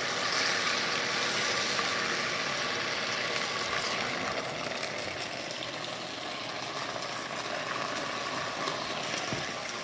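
Vodka poured into hot olive oil with sliced garlic in a stainless steel sauté pan, sizzling and spattering hard as the alcohol flash-boils in oil far above its boiling point. The sizzle is loudest in the first few seconds and then slowly eases off.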